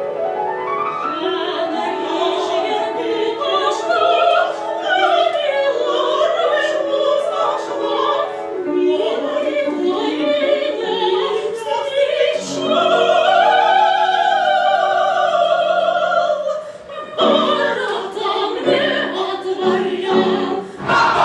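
Operatic singing with vibrato over classical accompaniment, with long held notes that arch up and fall back. The music changes abruptly about seventeen seconds in, as if cut to another passage.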